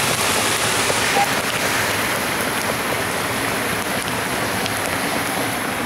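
Steady rushing of a mountain river, with a few faint crackles from a campfire.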